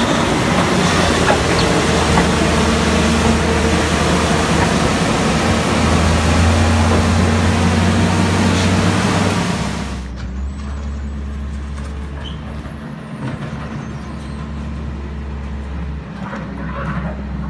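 A motor vehicle engine running steadily under loud rushing noise. The rushing drops away sharply about ten seconds in, leaving the low engine hum.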